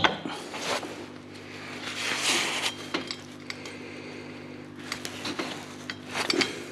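Light metallic clinks and knocks, with a short scraping rub about two seconds in, as a V-belt is worked by gloved hands over the grooved accessory pulleys of a Volvo 940 engine. A steady low hum runs underneath.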